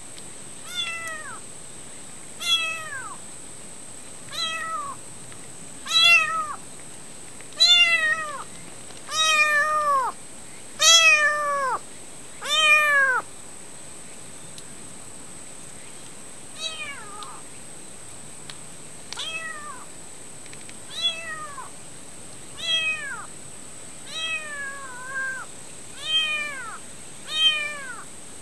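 Stray kitten meowing over and over, high crying calls that slide down in pitch at the end, about one every second and a half. The calls grow loudest toward the middle, stop for a few seconds, then resume more softly: a kitten crying for its mother.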